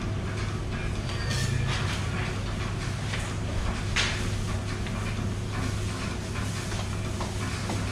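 Window-tint fitting on a car's side glass: a steady low hum with two short hisses, about a second and a half in and again at about four seconds, over faint ticks and scrapes of the work.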